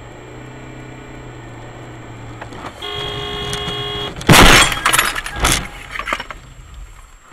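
Car horn sounding for about a second, then a loud crash about four seconds in as the car hits the SUV crossing in front, followed by several more bangs and scraping as it leaves the road into deep snow. Steady low road and engine hum underneath before the horn.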